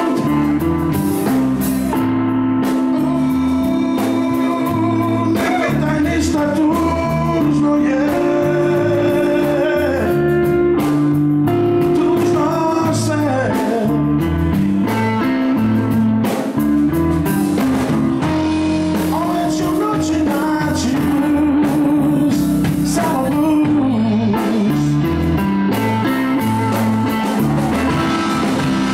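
Live blues band playing: a man sings the lead vocal over electric guitar, bass guitar and drum kit.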